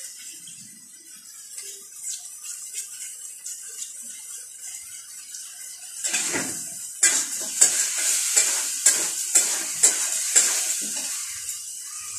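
Hands swishing shredded potato in a pot of water. About six seconds in, a quick run of crisp cuts follows, two to three a second, as potato is sliced against the upright blade of a boti, the Bengali floor-mounted knife.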